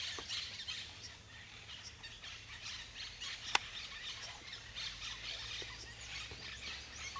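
Many small birds chirping and calling in quick, overlapping notes, with a single sharp click about three and a half seconds in.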